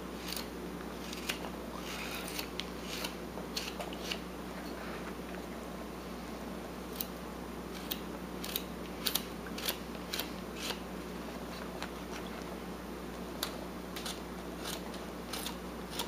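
Carving knife slicing chips off a wooden figure being whittled, heard as a string of short, irregular cuts and snaps, some closer together around the middle.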